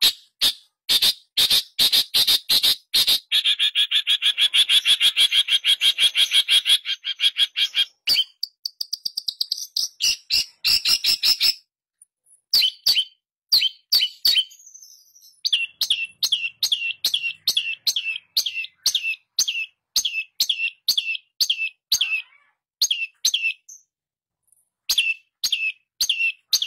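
Long-tailed shrike (pentet) singing: a fast, dense chattering run of harsh repeated notes for the first several seconds. After a short pause comes a regular string of short, sharp single notes, about two a second.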